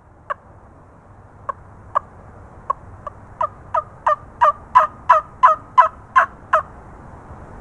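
A wingbone-style turkey call blown by mouth, making a run of sharp turkey yelps. The notes come sparse at first, then run at about three a second, growing louder until they stop about a second before the end.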